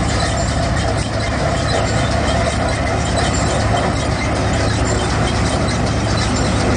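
Punni groundnut combine harvester running at work, its pickup reel gathering groundnut vines: a loud, steady mechanical din of engine and threshing machinery with a low hum underneath.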